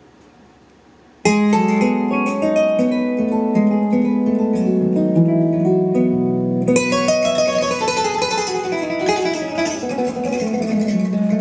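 Low hiss, then about a second in, music played on plucked strings starts abruptly: many ringing notes at once, growing fuller and brighter about halfway through.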